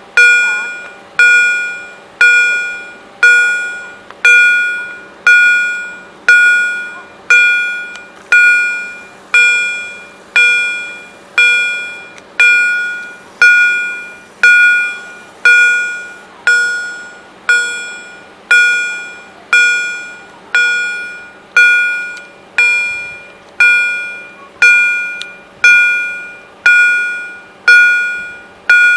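EHL level-crossing warning bell striking about once a second, each ringing stroke fading before the next: the crossing is active, warning of an approaching train.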